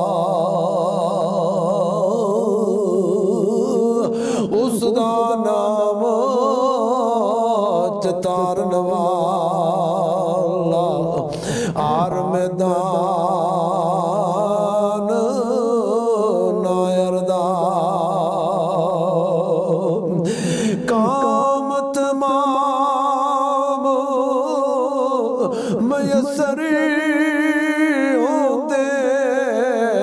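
A solo male voice singing a Punjabi Sufi kalam in long, drawn-out held notes that waver with heavy vibrato and ornament, broken by short breaths between phrases.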